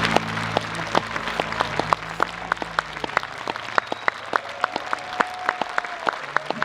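Concert audience applauding at the end of a song, individual claps distinct, with the band's last chord fading out under the clapping over the first few seconds.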